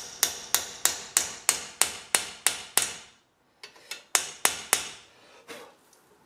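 Hammer striking a rivet snap held on an eighth-inch rivet, forming its dome head. Sharp metallic blows come about three a second, break off briefly a little past halfway, then resume for a few more and end with lighter taps.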